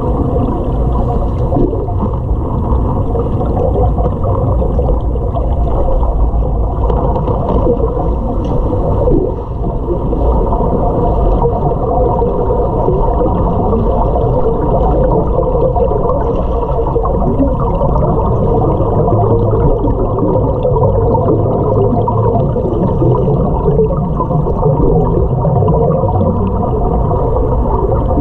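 Muffled underwater noise in a swimming pool: a steady low drone with gurgling from the scuba diver's exhaust bubbles.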